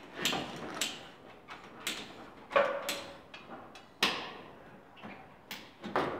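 PVC drain pipe scraping and knocking against rough concrete as it is worked into a chased wall groove with a red-handled tool. There are about eight separate sharp scrapes, one of them with a short squeak.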